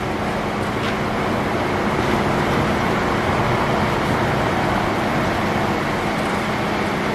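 Metal lathe running steadily, a steady motor-and-gear hum, while a twist drill in the tailstock chuck is hand-fed into the spinning workpiece to drill it.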